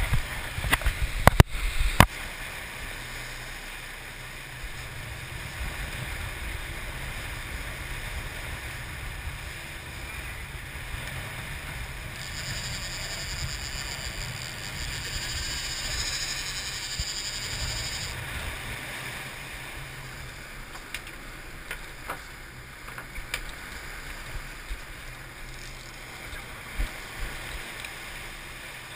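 Sportfishing boat underway: a steady low engine rumble under the rush of churning wake water. A few sharp knocks come in the first two seconds, and a high steady whine sounds for about six seconds in the middle.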